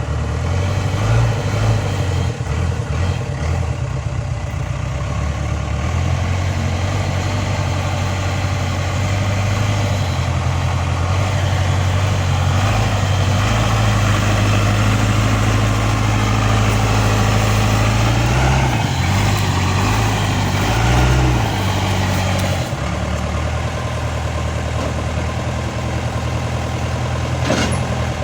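Backhoe loader's diesel engine running while the machine is parked, its note rising and falling as it is manoeuvred, then settling lower and steadier for the last few seconds. A brief sharp sound comes near the end.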